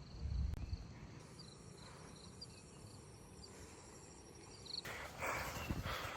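Faint insects chirping in short repeated bursts over a steady high thin drone. There is a low rumble about half a second in, and a rustling hiss starts near the end.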